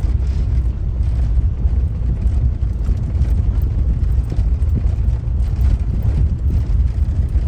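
Steady low rumble of road and engine noise from inside a moving car.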